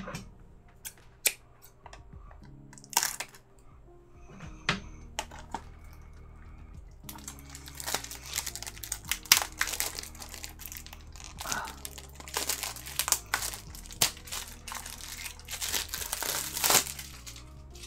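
Packaging crinkling and crackling as a Blu-ray case is handled: a few sharp clicks at first, then a long stretch of dense crinkling from about seven seconds in.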